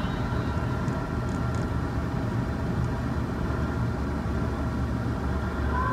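Steady low engine and road rumble of a vehicle heard from inside its cabin while driving.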